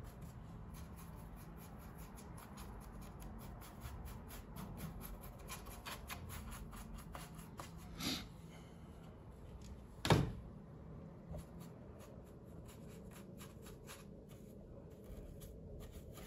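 Faint dabbing and scratching of a fine paintbrush working acrylic paint on a plastered polystyrene model, a quiet run of tiny clicks. Two soft knocks stand out about eight and ten seconds in, the second the louder.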